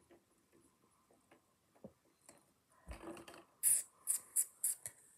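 Handling noise from a plastic drink bottle and a cut-open Pringles can: a few faint clicks, then a dull thump about three seconds in, followed by a quick series of sharp, crinkly rustles.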